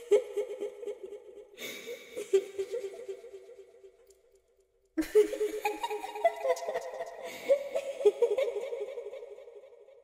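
Eerie little-girl laughter performed as a horror sound effect: three giggling phrases, one ending about a second in, a second from about a second and a half in that fades by four seconds, and a longer one starting halfway that climbs in pitch and then trails off near the end.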